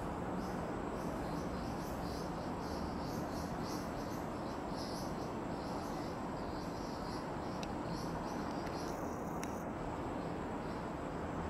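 Insects chirping in a steady rhythm of short high pulses, about two a second, over a constant low background rumble. The chirping stops about nine seconds in.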